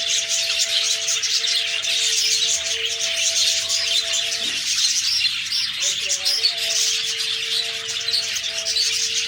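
Budgerigars chirping and chattering continuously, many short calls overlapping. Underneath runs a steady low two-note hum that breaks off about four and a half seconds in and returns a second and a half later.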